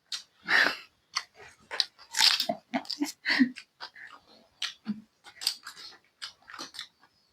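Close-miked chewing of chatpate, a crunchy Nepali puffed-rice snack: irregular crunching bites and wet mouth clicks.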